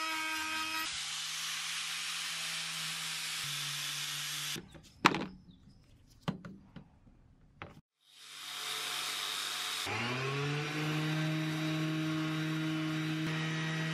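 A handheld rotary tool with a sanding drum grinds the steel axe head, giving a steady whine. It stops after about four and a half seconds, followed by a few sharp knocks, the loudest about five seconds in. A Metabo orbital sander then starts and runs steadily, its pitch rising to full speed about ten seconds in.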